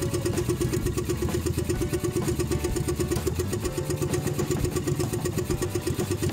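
Small engine of a motorized outrigger boat running steadily, with an even, rapid pulse.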